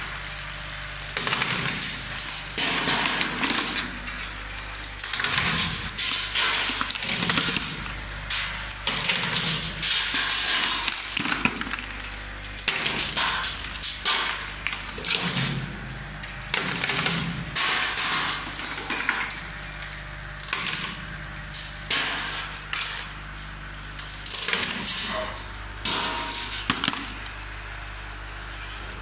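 Gloria Babochka walnut-cracking machine running with a steady motor hum, as walnuts are cracked and shells rattle through it in irregular bursts of crackling.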